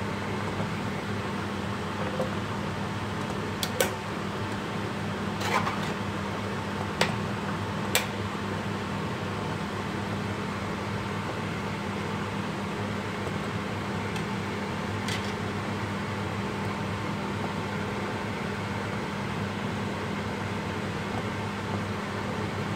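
A metal spoon knocking and scraping against an opened tin can and a stainless steel pot as canned food is scooped into the pot, a few sharp clinks spread over the first eight seconds and one more later. A steady mechanical hum runs underneath.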